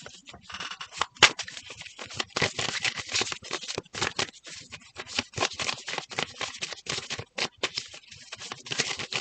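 Tarot cards being shuffled by hand: a dense run of quick papery flicks and slaps, with one sharper snap a little over a second in.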